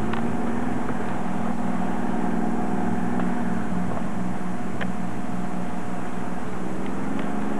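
An engine running steadily with a low, even hum that rises slightly in pitch at the start and then holds.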